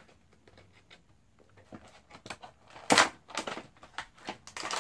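Plastic and foil toy packaging being torn open and crinkled, in quick crackling bursts that start about two seconds in, loudest near the three-second mark.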